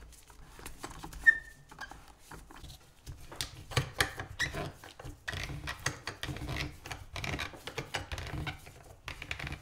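A deflated scooter tire on its wheel being handled on a plywood bench, with irregular rubbing, scraping and small knocks as a C-clamp is loosened and taken off and the wheel is moved. A short sharp squeak about a second in is the loudest sound.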